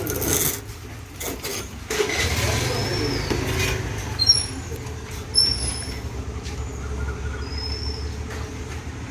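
A low, steady vehicle rumble that sets in about two seconds in, with a few short high chirps over it.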